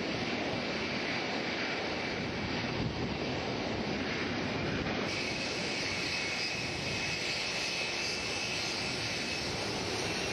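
Cargo plane's engines running with a steady rush of noise. About halfway through the sound changes slightly and a faint steady whine joins it.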